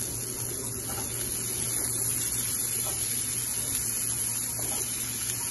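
Onions frying in a pan with a steady sizzle under a constant low hum, with a few faint taps as cauliflower florets are dropped in.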